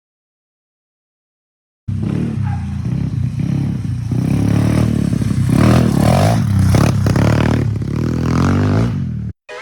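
125cc Fury pit bike's single-cylinder four-stroke engine running and revving, starting abruptly about two seconds in and cutting off just before the end.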